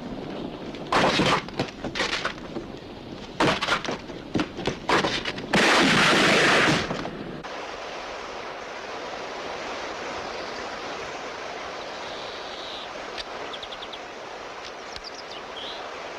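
Gunfire in short loud bursts over a few seconds, followed by a longer loud blast of about two seconds that cuts off, then a steady outdoor background with a few faint chirps near the end.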